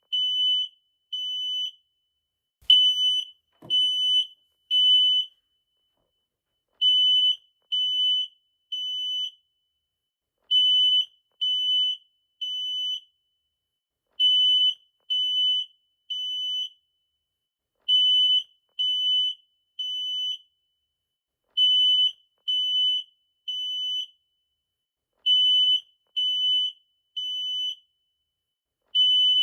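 Smoke alarm sounding a high-pitched beep in groups of three, each group followed by a short pause, over and over: the temporal-three pattern that signals smoke or fire and calls for evacuation.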